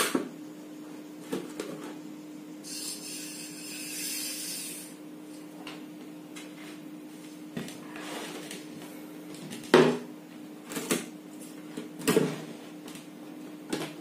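A wall-board switch clicks, then wires, tools and a ceiling fan motor are handled on a wooden workbench, giving scattered knocks and clatters. The loudest come about ten and twelve seconds in, over a steady low hum.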